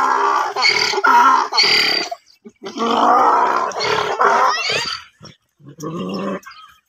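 Donkey braying, a pitched hee-haw that switches back and forth between a higher and a lower note. The first bray breaks off about two seconds in, a second long bray follows, and a short one comes near the end.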